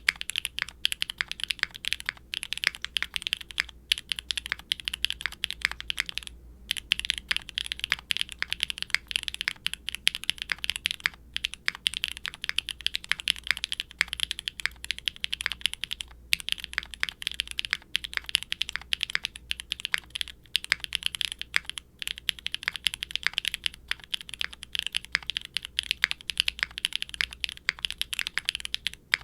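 Fast, steady typing on a QwertyKeys neo65 aluminum mechanical keyboard with factory-lubed Kailh BCP linear switches, a carbon fiber plate, no dampening foam and GMK double-shot ABS keycaps. The keystrokes are clacky, sharp and bright, with one short pause about six and a half seconds in.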